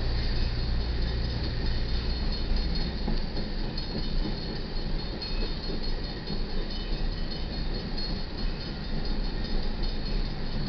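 Empty coal hopper cars rolling past: a steady rumble and clatter of steel wheels on the rails.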